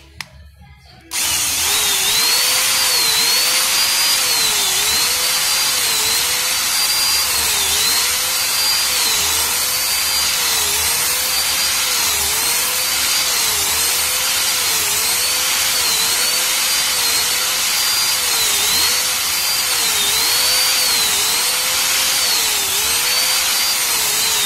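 Electric drill running without a break as it drills out a rivet in a circuit breaker's plastic case, starting about a second in. The motor's whine dips and recovers again and again, roughly once a second, as the bit bites into the rivet.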